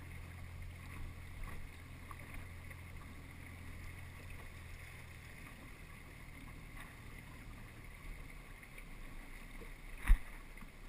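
Inflatable coach boat under way: a low, steady motor hum with water and wind noise along the hull, the hum fading about eight seconds in. A single sharp knock near the end is the loudest sound.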